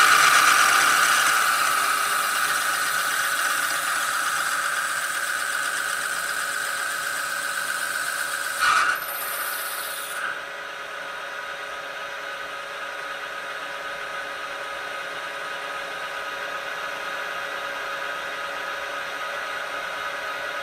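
Metal lathe taking a boring cut inside the chuck body with a boring bar: a cutting hiss with a steady whine, loudest at the start and slowly fading. About halfway through there is a short knock, and soon after the cutting noise stops and only the lathe's running hum remains.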